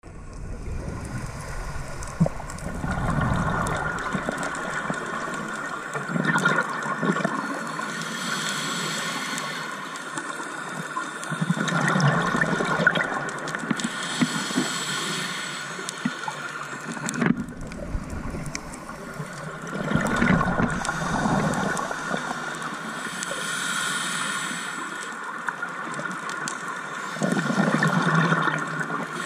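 Scuba diver breathing through a regulator underwater: bubbly gurgling exhalations alternating with hissing inhalations, repeating every few seconds over a steady hum.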